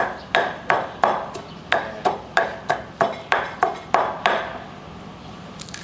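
A pestle pounding dried chilies in a mortar, in a steady rhythm of about three strikes a second that stops a little over four seconds in.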